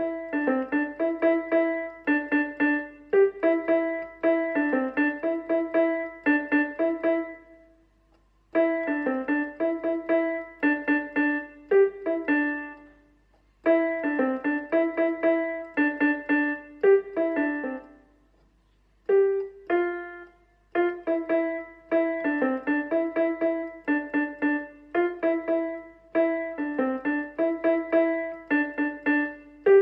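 Casio CT-S300 digital keyboard being played in a piano tone: a short phrase of quick notes, repeated over and over, with brief breaks about eight, thirteen and nineteen seconds in.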